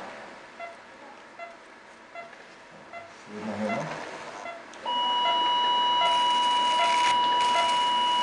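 Electrosurgical diathermy unit sounding its steady activation tone as the cautery pencil is energised to cut or coagulate tissue. One high beep starts about five seconds in and holds unchanged for several seconds.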